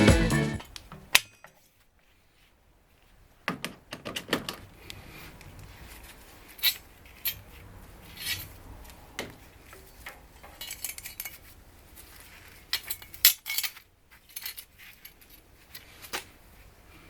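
Scattered, irregular clinks and clicks of small metal parts and tools being handled, with a near-silent gap about a second and a half in; the loudest clink comes about two thirds of the way through.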